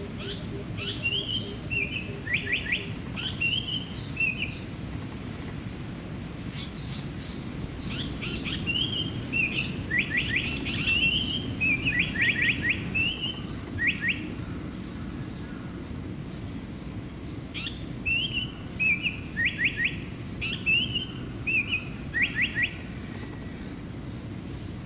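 Lanyu paradise flycatcher singing: three phrases, each a few slurred whistles followed by a quick run of three or four sharp down-slurred notes, over a steady low background rumble.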